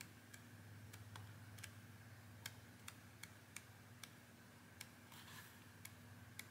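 Faint, irregular soft clicks of book pages being flicked past under a thumb, with a brief paper rustle, over a low steady hum.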